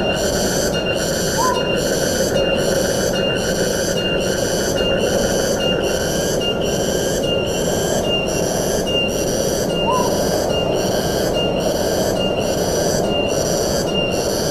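Forest ambience: wind in the trees makes a steady rushing, under a high, buzzing call that pulses about twice a second throughout. A short rising chirp comes twice, about a second and a half in and again near ten seconds.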